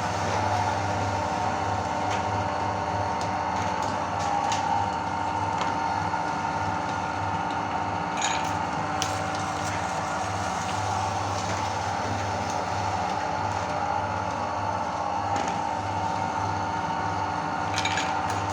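Electric meat grinder running steadily, its motor humming, with a few sharp cracks as cookies are crushed in the auger.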